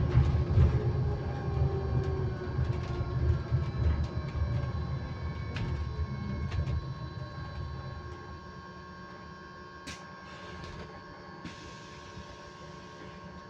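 Electric bus heard from inside, its motor whine falling and road rumble fading over the first several seconds as it slows. Through it and after it runs a steady high-pitched tone on one constant pitch, a noise that comes from the bus itself.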